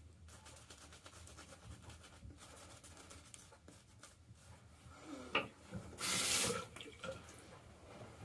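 Shaving brush scrubbing lather over a beard, a soft scratchy rubbing, then a knock about five seconds in and a short burst of tap water running for under a second.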